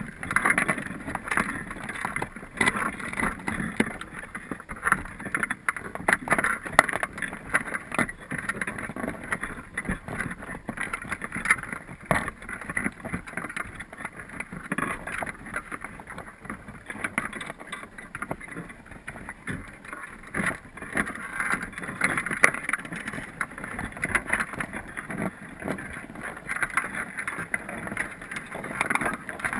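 Underwater ambient noise heard through a submerged camera: a steady crackling hiss full of small clicks and ticks.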